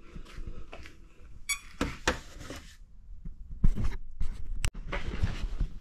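Irregular knocks, clicks and rustles of handling, with no motor running.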